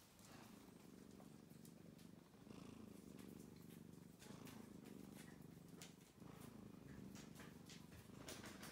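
Domestic cat purring softly close up, the purr rising and falling in long cycles about two seconds apart.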